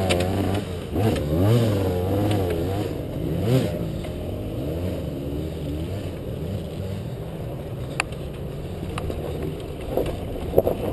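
Honda CRF230 dirt bike's single-cylinder four-stroke engine revving up and down repeatedly during the first few seconds of a steep hillclimb, then running at a steadier, lower pitch. A few sharp knocks come near the end.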